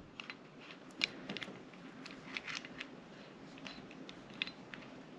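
Small, sparse clicks and light scrapes of metal parts being handled as a sight pusher tool is set back on a pistol slide. The clearest click comes about a second in.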